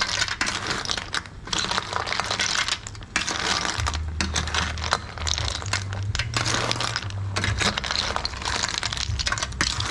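Snail shells clattering against each other and an aluminium bowl as a metal ladle stirs them: a dense, irregular run of small clicks and scrapes.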